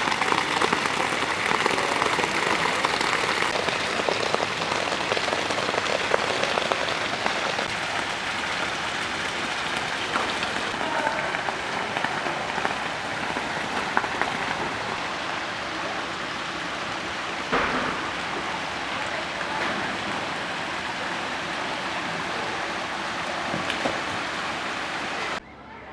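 Steady, dense hiss and patter of water that cuts off abruptly near the end.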